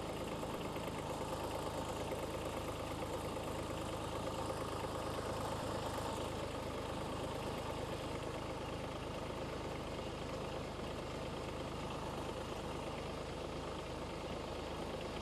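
A vehicle engine idling steadily, an even running sound with no revving or change in pitch.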